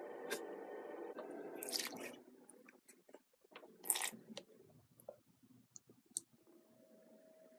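Faint squishing with sticky clicks and snaps, as of slime being squeezed and pulled, over a low steady hum that stops about two seconds in.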